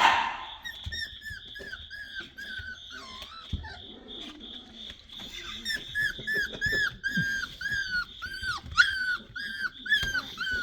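Black and tan coonhound puppies whining and squealing in short, arched cries, sparse at first, then coming two or three a second from about halfway through. A brief loud rustle sounds at the very start.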